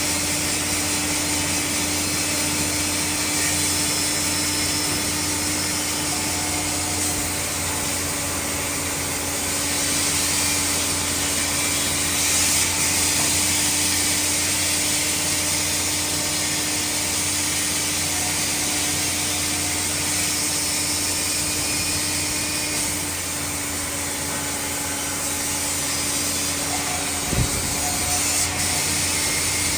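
Sawmill running, its saw working through wood with a steady hum under a continuous rasping noise. The cutting noise swells twice: once around ten seconds in and again around twenty-four seconds in.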